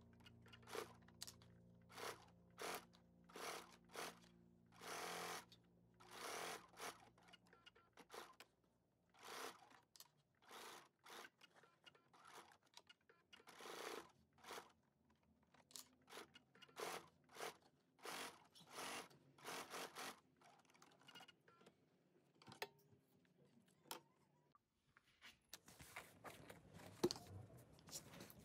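Faint Bernina B570 sewing machine stitching in short spurts, each lasting under a second, as binding is fed around a curved bag edge, with fabric rustling between the spurts.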